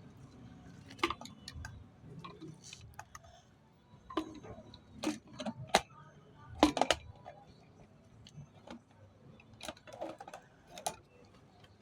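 Scattered clicks and taps from objects being handled, irregular, with the loudest cluster of knocks a little past the middle.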